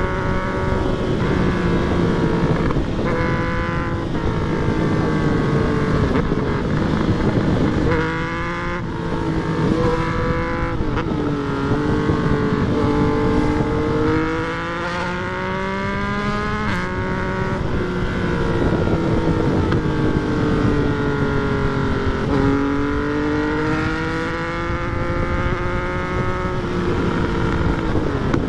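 Yamaha MT-09's three-cylinder engine under way, revving up and easing off repeatedly. The pitch climbs, then drops sharply several times as it shifts gear, with one long pull in the middle third.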